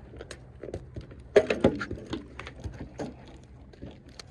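Irregular light clicks and knocks of footsteps and gear being handled on a wooden deck. A brief voice sound comes about a second and a half in.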